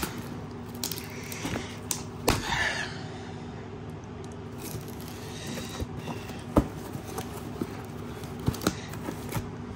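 A parcel being handled and opened by hand: scattered light clicks and knocks of the packaging, with a brief rustle about two and a half seconds in.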